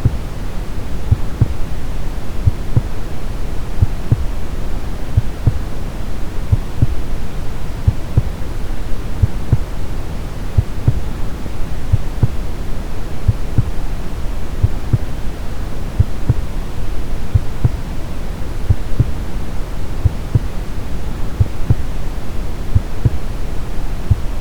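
Brown noise, a steady deep hiss weighted toward the low end, with a regular heartbeat of soft low thumps running through it.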